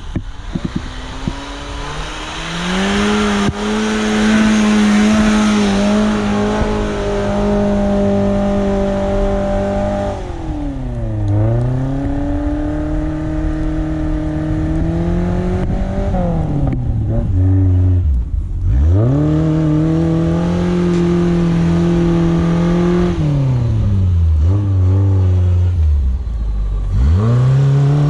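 Suzuki SJ410's engine revving hard off-road, holding high revs and then dropping sharply and climbing again several times as the driver works the throttle.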